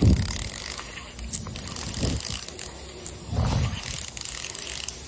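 Fishing reel being wound, its gears and ratchet clicking, with three dull low thumps along the way.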